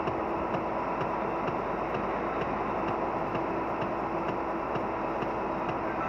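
Volvo FH16 truck's 16-litre straight-six running at cruising speed, heard as a steady drone with road and tyre noise. A faint, even ticking comes about three times a second throughout.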